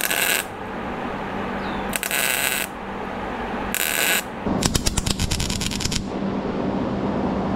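Wire-feed (MIG) welder tacking a sheet-metal patch panel: a series of short tack welds, each a brief crackling hiss, three of about half a second and then a longer burst of rapid crackling about four and a half seconds in.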